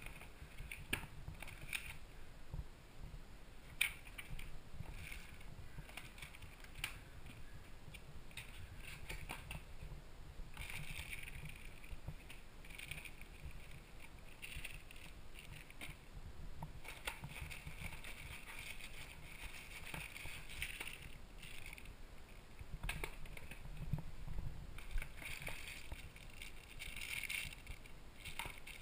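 Plastic bags and paper being handled in a cardboard box: crinkling and rustling in several bouts, with scattered small clicks and knocks between them.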